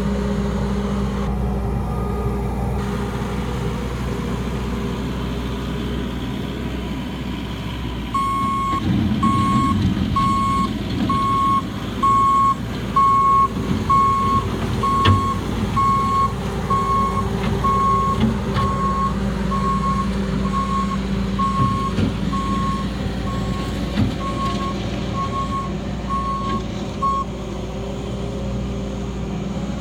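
Bobcat's engine running steadily. From about eight seconds in, its reversing alarm beeps about once a second while the machine backs up, with a few knocks, and stops a few seconds before the end.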